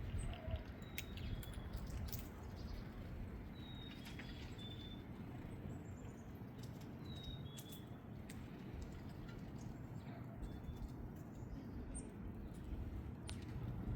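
Chickadee singing its clear whistled two-note song, each phrase stepping down in pitch, repeated every three seconds or so. Scattered sharp clicks and a steady low rumble sit underneath.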